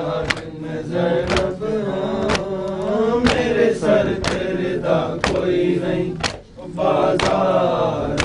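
Noha chanted in Urdu by a male reciter with the congregation, in a slow rhythm. Sharp strikes of matam (hands beating on chests) fall about once a second and keep the beat.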